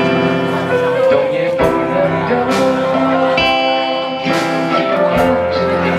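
Small live band playing a song: an acoustic guitar strummed over a Pearl drum kit keeping a steady beat of roughly one stroke a second.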